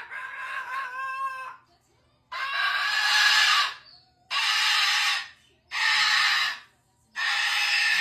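Moluccan cockatoo screaming: a run of five loud harsh screeches, each about a second long with short gaps between them.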